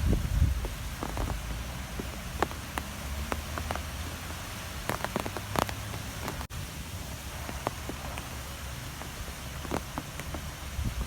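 Strong wind blowing in gusts, a low buffeting haze with scattered light ticks and taps over it. The sound cuts out for an instant about six and a half seconds in.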